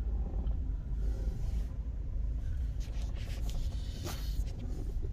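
Low, steady rumble of a car rolling slowly forward, heard from inside its cabin. A few short knocks and rustles sound around three to four seconds in, as the phone camera is moved.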